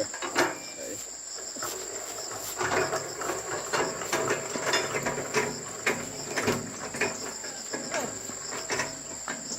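Steady high-pitched insect chirring, with irregular clicks, knocks and clatter of hands-on work over it.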